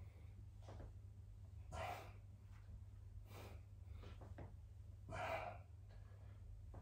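A man breathing hard through push-ups: a heavier breath out roughly every one and a half to two seconds, with fainter breaths between, over a faint low hum.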